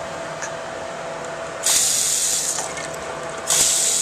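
Bathroom sink faucet turned on twice in short bursts, each time about a second of water rushing into the basin, over a steady faint hum.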